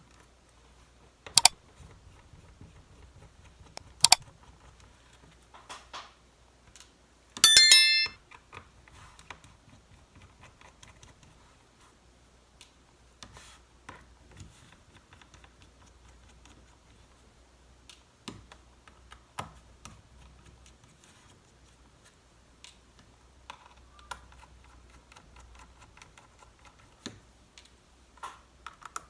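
Small metal clicks and faint scraping from a pentalobe screwdriver and the tiny screws of a MacBook Pro's aluminium bottom cover as it is being opened. Two sharp clicks come in the first few seconds, and a brief bright metallic ring about seven seconds in.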